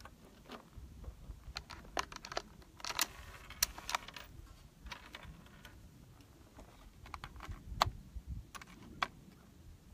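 Scattered light metallic clicks and clinks of 22-250 cartridges being handled from their box and loaded into a Thompson Center Compass bolt-action rifle, with a small cluster of clicks a few seconds in and a couple of sharper ones near the end.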